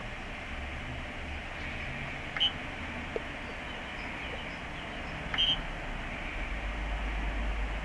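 Homemade 3D printer on an x-axis test: two short high-pitched beeps about three seconds apart over a steady low hum, with a faint click between them.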